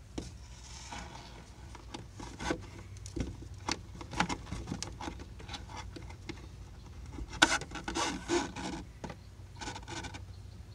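Hands and a shirt sleeve rubbing, scraping and knocking against a fibreglass boat panel while a bungee cord is worked through a small hole, with a louder clatter about seven and a half seconds in.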